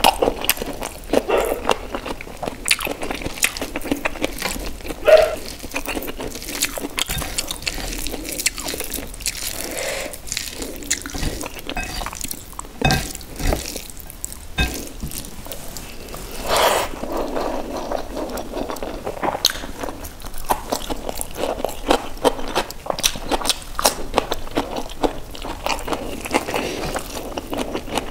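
Close-miked eating by hand: wet chewing and lip smacks of rice with paneer gravy, with many short crunchy clicks scattered throughout.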